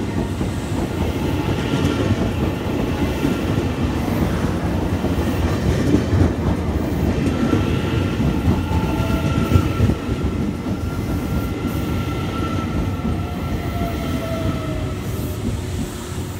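Electric multiple-unit train running past along a station platform: a continuous rumble and clatter of wheels on rail. In the second half a steady high whine sits over the rumble, and a lower whine falls slightly in pitch near the end.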